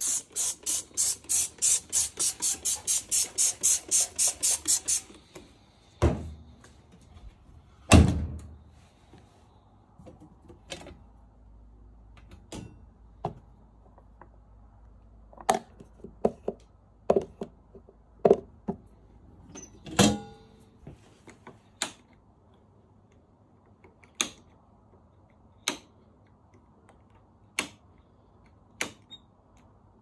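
Liquid detergent glugging out of a bottle into a washing machine drum, about four or five glugs a second for roughly five seconds. Then a loud thump about eight seconds in, fitting the porthole door being shut, followed by scattered clicks and knocks of the detergent drawer and controls being handled.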